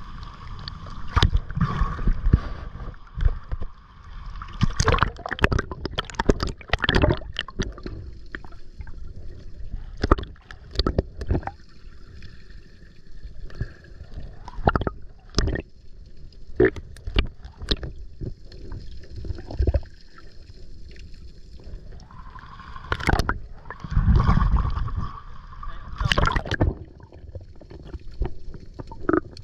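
Water sloshing and gurgling around a small boat, with many sharp knocks and clatters, heaviest in two spells, one early and one near the end.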